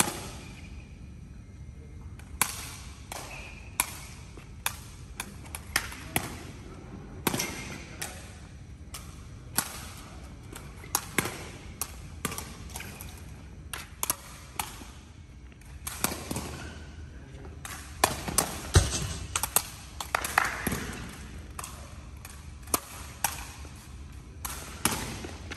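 Sepak takraw balls being kicked and bouncing on the court: a string of sharp smacks at irregular intervals, each ringing on briefly in the hall, coming thicker and louder a little past halfway.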